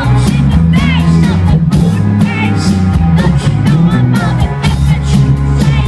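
Live rock band playing loud, with a heavy bass line, steady drum hits and a sung vocal line over it.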